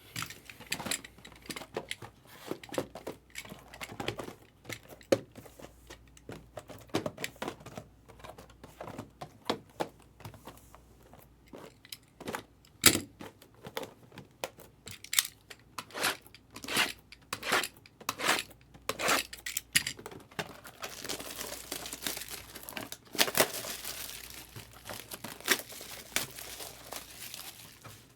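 Foil-wrapped baseball card packs being torn open, their wrappers crinkling. Irregular sharp crackles and snaps give way, about twenty seconds in, to steadier, denser crinkling.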